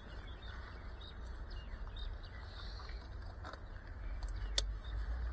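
Faint, steady low rumble with scattered small clicks and taps, and one sharp click about four and a half seconds in, as FPV drone gear and goggles are handled.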